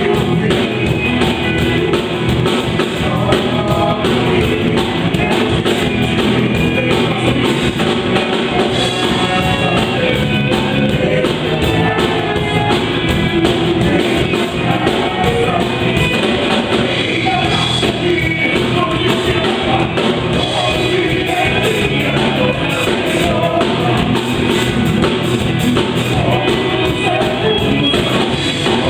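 Worship band rehearsing an upbeat song live: drum kit, guitar and singing together, loud and steady throughout.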